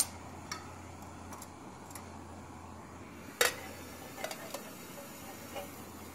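Folding wire handle of an anodized aluminum camping frying pan being swung and handled against the pan: a few light metallic clicks and clinks, the sharpest about three and a half seconds in with a brief ring.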